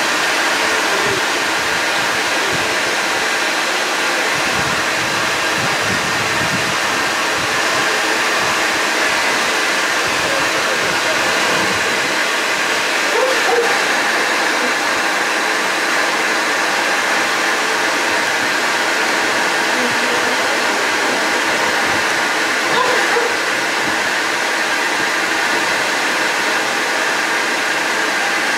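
Bee vacuum running steadily, a constant whooshing hum drawing bees out of a hive, with two brief small swells about halfway through and again near the end.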